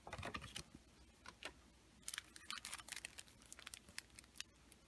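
Faint rustling and clicking of a paper instruction leaflet and packets of screen-cleaning wipes being handled. The sounds come in a short cluster near the start and a denser run from about two seconds in.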